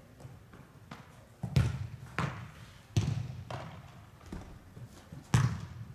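Soccer balls being struck during goalkeeper drills: about six sharp thuds, the loudest about a second and a half in, at three seconds and near the end, each echoing in a large indoor hall.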